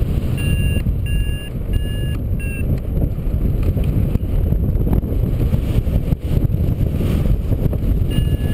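Wind rushing over the microphone in paraglider flight, with a variometer beeping: four short beeps about two a second in the first few seconds, and more starting near the end. The beeping is the climb tone, the sign of the glider rising in lift.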